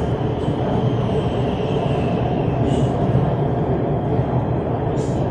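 Steady rumble and rolling noise of an electric metro train running between stations, heard from inside the carriage, with a faint high whine over it.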